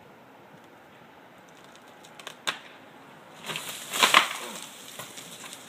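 Tree wood cracking and splintering as a cut section breaks away. There is one sharp crack about two and a half seconds in, then a loud second-long burst of snapping and splintering about a second later.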